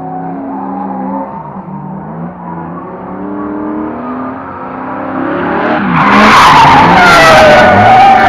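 Two drift cars sliding in tandem, engines revving up and down with tyre squeal. About six seconds in, the tyre screech and engines grow much louder as the cars come close.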